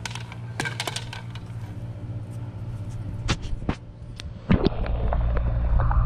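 Sharp clicks and knocks at irregular intervals, a cluster in the first second and a few more later, over a steady low hum. A louder low rumble comes in about four and a half seconds in.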